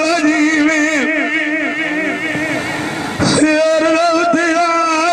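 A man sings Punjabi dhola folk verse into a microphone, holding long notes with a heavy wavering vibrato. He breaks briefly and starts a fresh phrase about three seconds in.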